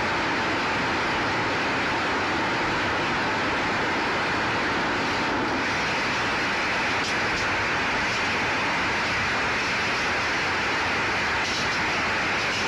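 Steady, even rushing noise with no distinct events, and a few faint ticks now and then.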